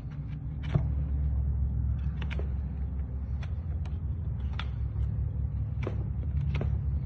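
Sharp metallic taps of a farrier's hammer on a clinch cutter against a horse's hoof wall, about eight strikes at irregular intervals, cutting the clinches of the old shoe before it is pulled. A steady low hum runs underneath.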